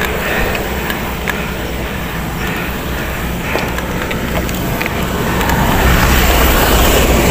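Wind rumbling over the camera microphone and mountain-bike tyres rolling on rough concrete, with a few light knocks from the bike. The noise swells near the end.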